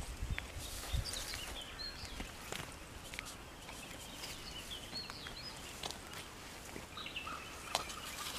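Small birds chirping with short, scattered high notes over a faint outdoor background, with a few light clicks in between.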